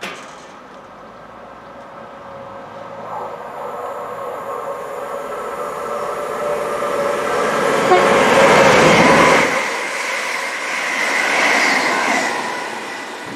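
Great Western Railway Hitachi Intercity Express Train, on an unwired line and so running on its underfloor diesel engines, approaching and rushing through the station at speed. Its rumble and whine grow steadily, are loudest as the coaches pass about eight to nine seconds in, swell again briefly, then die away.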